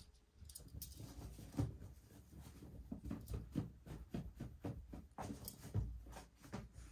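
A cat pouncing on and wrestling with a scratcher bed, its claws and body making an irregular run of short thumps and scrapes about two or three a second.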